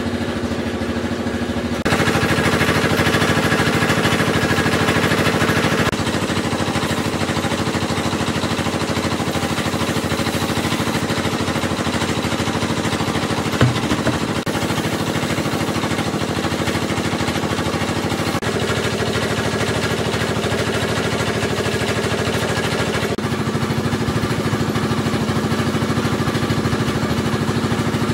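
An engine running steadily at idle. Its tone changes abruptly a few times, with one short sharp knock near the middle.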